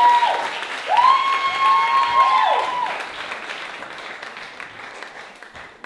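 Audience applauding and cheering, with long held cheers at the start and again from about one to three seconds in. The applause then dies away.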